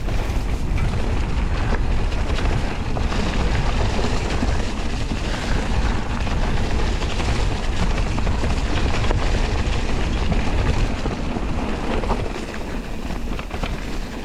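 Wind buffeting the microphone over the low rumble of an electric mountain bike's tyres on a dirt trail, with constant clicking and rattling from the bike and ground; it eases a little near the end.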